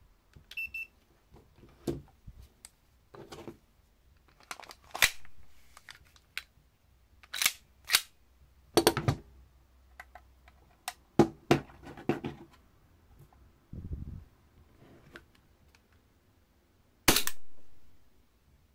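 Handling clicks and knocks, with a short electronic beep about a second in. Near the end comes a single loud shot from a SIG Sauer P320 M17 gas blowback airsoft pistol fired into a chronograph, fading out over about a second.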